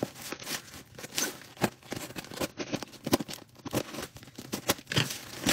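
Scissors cutting into a plastic-wrapped cardboard parcel box: irregular snips with tearing and crinkling of the packaging.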